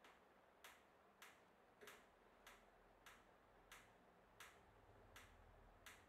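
Faint, regular ticks, about one every two-thirds of a second, from a hand screwdriver turning a screw into a metal bracket, one tick per twist of the wrist.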